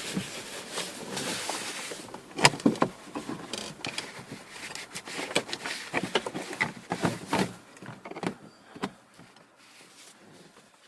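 Irregular clicks, knocks and rustling of a replacement dash speaker and its wiring being handled and pushed into the dashboard opening of a 1999 Chevy S10 pickup. The knocks are busiest in the middle and thin out to faint handling over the last few seconds.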